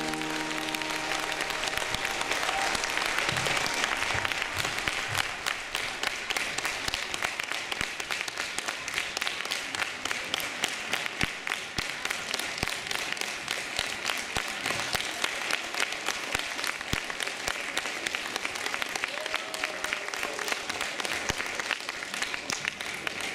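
Audience applauding steadily, a dense patter of many people clapping. The last notes of the music die away at the very start.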